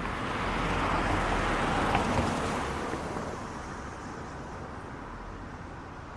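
Traffic on a slushy, snow-covered road: the tyre hiss of a passing vehicle swells to a peak about two seconds in, then fades back into a steady wash of traffic.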